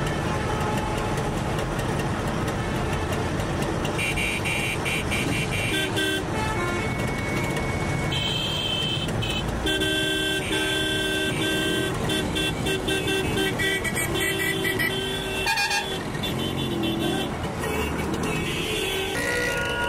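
Street traffic with engines running and many vehicle horns honking, short toots and longer blasts, over and over from about four seconds in.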